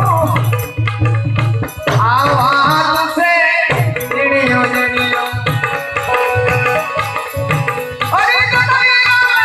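Gujarati santvani devotional music: a steady percussion beat with a melody over it that slides up and down in pitch.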